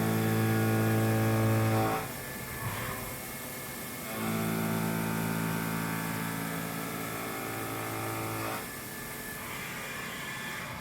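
Slow background music of long held low notes: one chord sounds until about two seconds in, a quieter stretch follows, then a second chord is held for about four seconds before fading back down.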